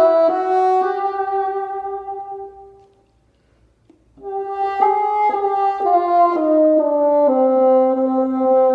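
Solo bassoon playing slow, sustained notes. A held note fades out about three seconds in, then after a short rest a phrase steps down note by note to a long held low note.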